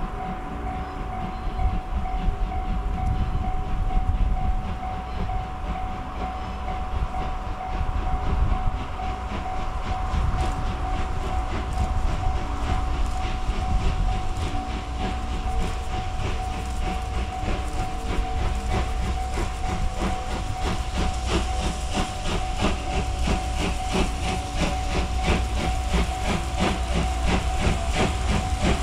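Steam locomotive C58 239 working hard up a steep grade, its exhaust beating in a steady rhythm of chuffs over a low rumble; the beats grow louder in the second half.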